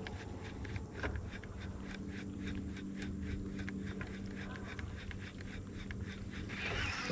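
Quiet outdoor ambience of irregular, quick clicks, a few a second, over a faint steady low hum that fades in and out in the middle.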